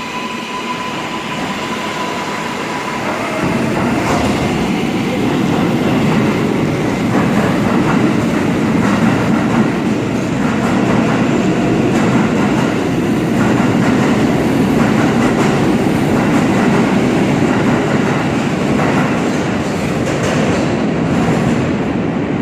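R188 subway train pulling out of the station. From about three seconds in, the rumble of its wheels on the rails swells as it gathers speed, with a brief rising motor whine and intermittent clicks of wheels over rail joints.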